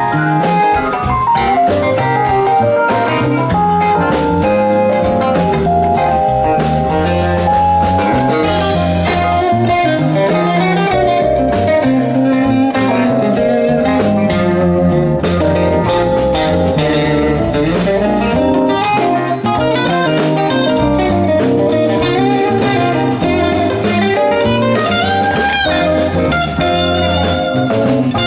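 Live rock band playing an instrumental passage: an electric guitar lead line over bass, keyboards and drums.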